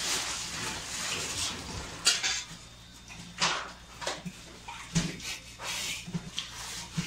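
Rustling, scraping and light clatter of aluminium foil food trays and utensils as cooked rice and food are scooped and packed, with a few sharper clinks.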